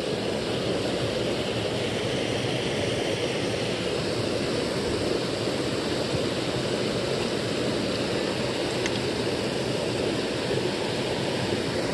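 Steady rush of a small creek's water spilling over a low cascade.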